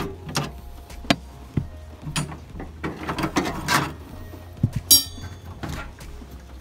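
Scattered knocks and clicks of objects being handled and set down, with one sharp, ringing metallic clink about five seconds in.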